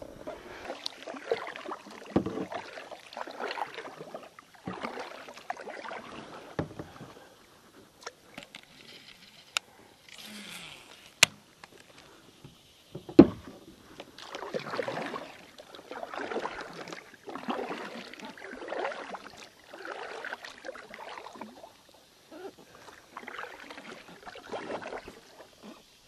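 Kayak paddle strokes swishing through calm lake water, evenly spaced about every second and a half through the second half, with scattered handling noises before them. A sharp knock on the hull stands out a little past the middle.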